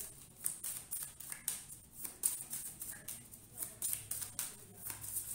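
A deck of divination cards being shuffled by hand: a run of quick dry flicks and slaps of card against card, several a second.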